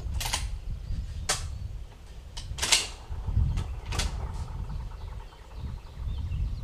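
Four sharp mechanical clicks and clacks, roughly a second apart, over a steady low rumble.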